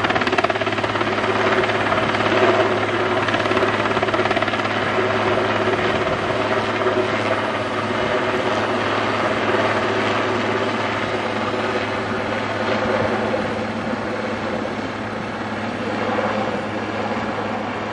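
Eurocopter AS532 Cougar twin-engine helicopter's steady rotor and turbine roar as it hovers and lifts an underslung load on a long sling line; the sound slowly gets quieter.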